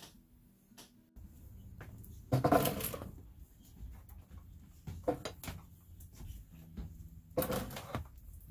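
Glass canning jars being handled and set down on a wooden shelf, with a loud rustle about two seconds in and a few short knocks and clinks later on.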